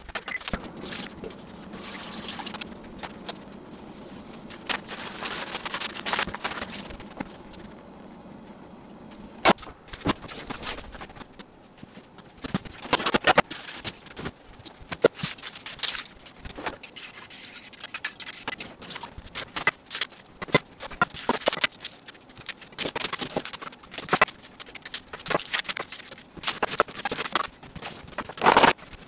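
Onions being peeled by hand at a plastic cutting board: their dry papery skins rustle and crackle, with irregular knocks and clicks from handling.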